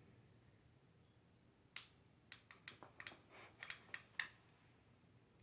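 Faint, light plastic clicks, about nine in two and a half seconds, from handling a mini RC car and working its remote's controls. There is no motor sound from the car, which is still switched off.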